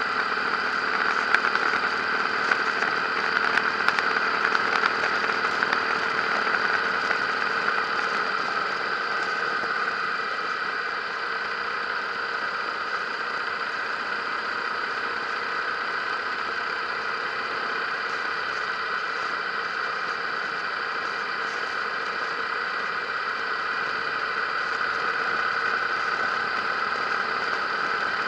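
Harley-Davidson motorcycle engine running steadily at cruising speed, a little quieter through the middle, heard from a camera riding on the bike.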